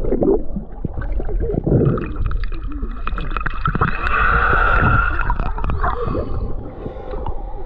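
Water gurgling and churning around swimmers as a small underwater scooter runs in its third speed setting, trying to tow them. A thin motor whine rises over the water noise a few seconds in and fades out about two seconds later.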